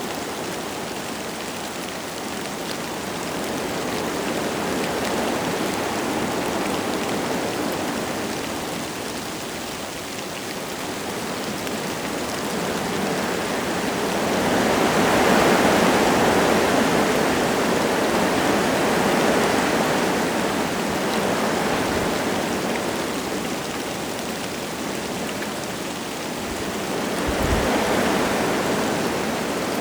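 Wind gusting through forest trees with light rain, a steady rushing that swells and eases, strongest about halfway through and again near the end. A brief low thump comes near the end.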